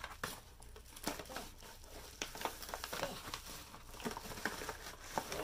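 Kraft-paper mailer envelope rustling and crinkling as it is handled and opened, in an irregular string of short crackles.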